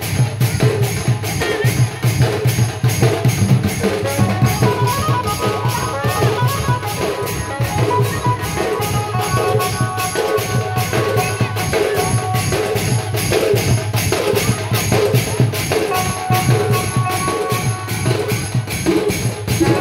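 Loud dance music with a fast, steady drum beat and jingling, tambourine-like percussion, a melody line running above it.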